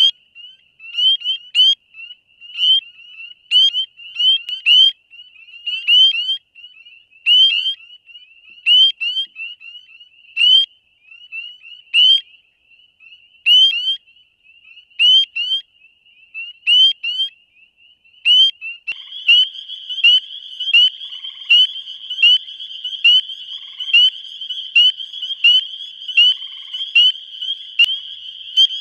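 Spring peepers calling: a close frog gives short, rising, whistled peeps about one and a half times a second, with neighbouring peepers overlapping. About nineteen seconds in, a dense, steady peeper chorus at the same high pitch fills in behind the individual peeps.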